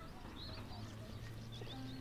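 Small birds chirping in short, repeated calls over a low, steady musical drone, with more held notes joining near the end.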